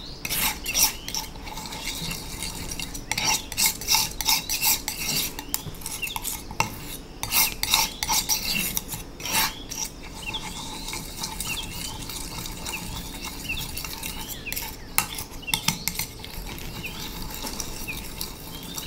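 Metal palette knives scraping and tapping on a ceramic tile as they mull wet pigment paste, a quick run of short scrapes and clinks. The strokes are louder and denser in the first half and grow fainter and sparser later.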